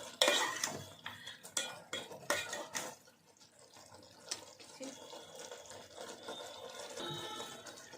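A metal spoon stirring and scraping in a cooking pan, with a quick run of clinks in the first three seconds and then a few lighter taps and scrapes.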